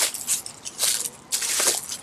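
Footsteps crunching on gravel at a walking pace.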